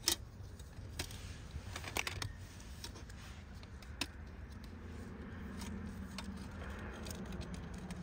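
Scattered light clicks and taps of a metal licence plate and frame being handled and fitted against a car's front plate bracket, over a steady low background rumble.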